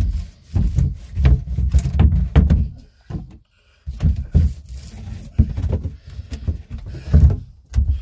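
Irregular dull bumps and knocks, heavy in the low range with a few sharper knocks, as a stringer is handled and fitted into the boat hull.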